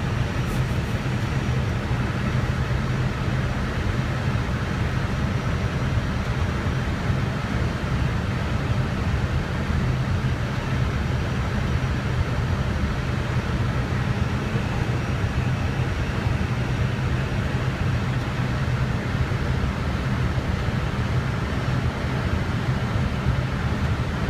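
Steady flight-deck noise of an Airbus A320 on final approach: a constant low hum with an even rush of air over it.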